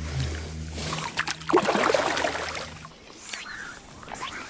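Water splashing and sloshing as a large trout is let go from the hands into shallow water and kicks away. Then quieter outdoor ambience, with a bird chirping twice near the end.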